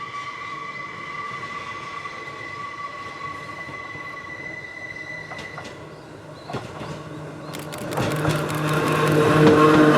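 Hakone Tozan Railway Moha 1 electric train: a steady high-pitched wheel squeal on a curve dies away about halfway through. About eight seconds in, the train gets louder with a rapid clatter over rail joints and the low hum of its old nose-suspended traction motors.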